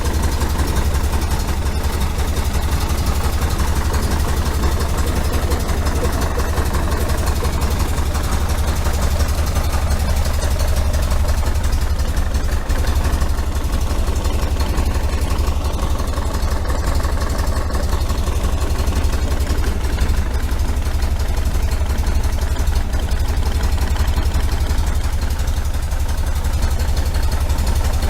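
1973 VW Super Beetle's air-cooled flat-four engine idling steadily, with no change in revs.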